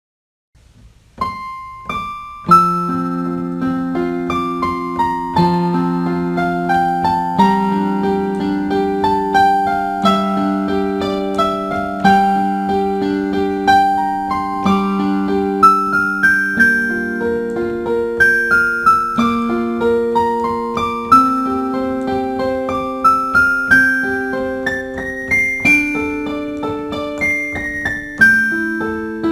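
Background piano music beginning about a second in: a gentle melody of single notes over held lower chords.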